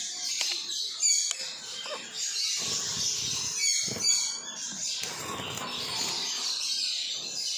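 Budgerigars chattering and chirping, with bursts of wing flapping about three and four seconds in as the birds flutter around the cage.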